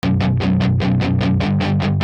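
Rock music: a guitar strummed in fast, even strokes, about seven a second, over a steady low bass line.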